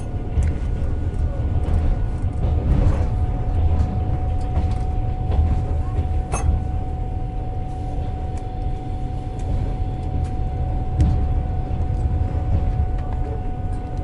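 Passenger train running: steady low rumble of the wheels on the rails heard from inside the carriage, with a faint steady whine and a few sharp clicks.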